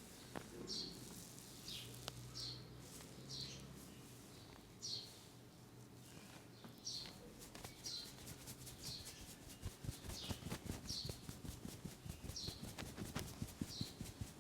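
A bird chirping repeatedly: short high downward chirps about once a second. From about two-thirds of the way in, rapid light hand taps of a massage join it, several a second and louder than the chirps.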